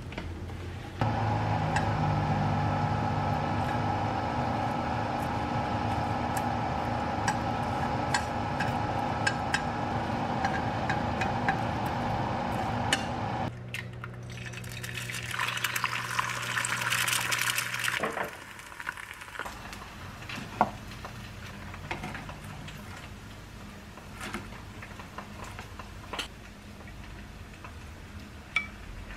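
A steady humming drone with a few fixed tones runs through the first half and cuts off abruptly. An egg cracked into a hot, oiled frying pan then sizzles for about three seconds, followed by scattered light clicks and taps.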